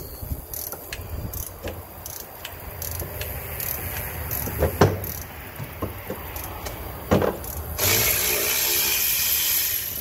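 Hand tools working on engine fittings: a ratchet wrench clicking in slow, even strokes and a few sharp metal knocks, then about two seconds of steady hiss near the end.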